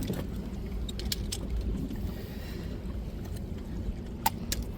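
Aboard a small fishing boat: a low steady rumble with scattered sharp clicks and knocks, the sharpest about four seconds in.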